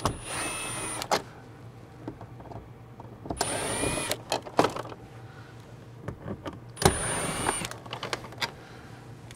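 Cordless power driver running in three short bursts of about a second each, its motor whine rising as it spins up, backing out screws, with scattered clicks and knocks between the bursts.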